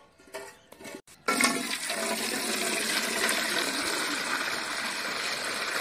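Water pouring in a steady stream into a metal cooking pot and splashing onto the water already in it, starting suddenly about a second in.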